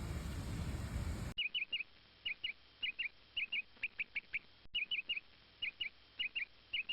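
A steady background rumble cuts off abruptly about a second in. It gives way to a small bird chirping: short, high, falling notes in quick pairs and triplets, repeated every half second or so.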